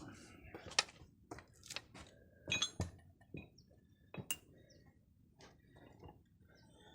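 Metal tools and hose fittings clinking and knocking as they are picked up and set down, in a handful of sharp separate strikes, a couple with a short metallic ring.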